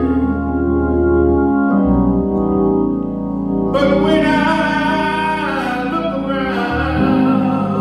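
Organ playing sustained gospel chords with a voice singing over it; the singing grows fuller and brighter about four seconds in.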